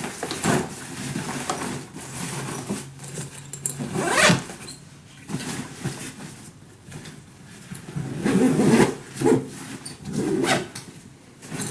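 Soft-sided nylon luggage being handled and packed: fabric rustling and shifting in irregular bursts, with a zipper being run.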